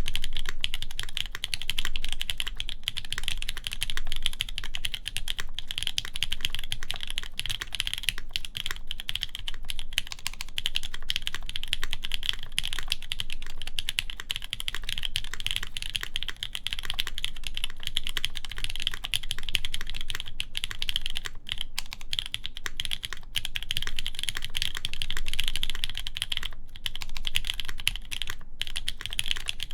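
Continuous fast typing on a Keycult No. 1 Rev. 2 custom mechanical keyboard with lubed JWicks linear switches, a polycarbonate plate and GMK keycaps: a dense, even run of keystroke clacks.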